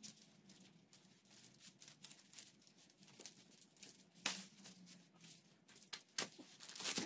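Faint rubbing and clicking of a bicycle inner tube and tyre being worked off the wheel rim by hand, with a louder scrape about four seconds in and another near the end.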